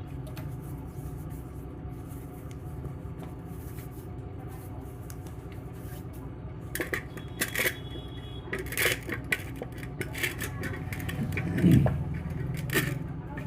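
Kitchen utensils clinking and knocking against each other a number of times in the second half, with one heavier knock near the end, over a steady low hum.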